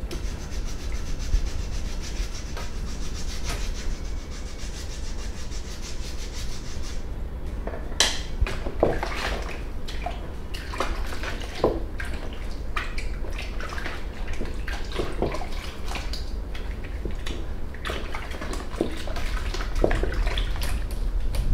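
Close-up rubbing and handling sounds on skin or hair, with a steady high hiss for the first seven seconds, then irregular soft clicks and knocks, over a constant low room hum.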